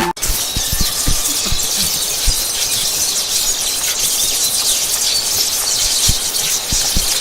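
Chidori (raikiri) sound effect: a loud, dense crackling hiss of electricity with scattered low pops, starting abruptly.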